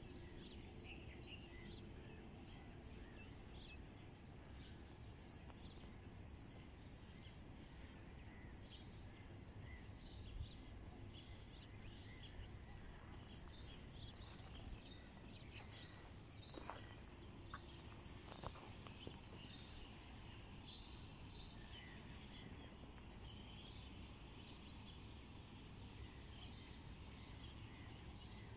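Faint outdoor ambience: small birds chirping over and over, with a steady low rumble underneath.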